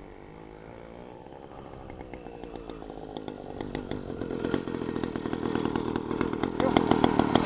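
Homebuilt motorized bicycle's small engine running as the bike rides up, getting steadily louder, then running close by with a strong, even popping beat near the end.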